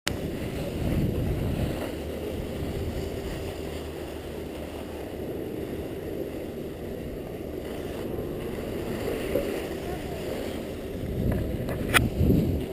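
Skis sliding and scraping over groomed snow, mixed with wind rushing over a GoPro's microphone, swelling and easing as the skier turns. A sharp knock near the end.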